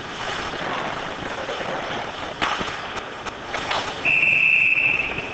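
Ice hockey play: a few sharp clacks of sticks and puck around the middle, then a referee's whistle blown in one long, steady, high blast near the end, stopping play at the net.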